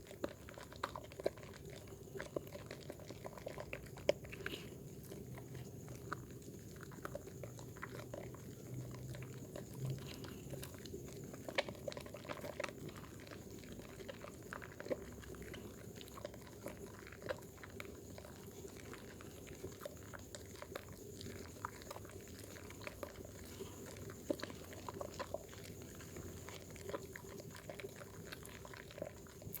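Wet bar soap being lathered: irregular squishy, crackling clicks of soap and suds worked with water, over a faint steady hum.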